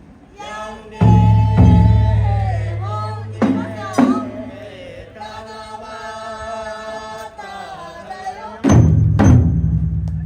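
Taiko drums playing: heavy strikes in pairs about half a second apart, each leaving a low booming ring, with a voice singing over the drumming.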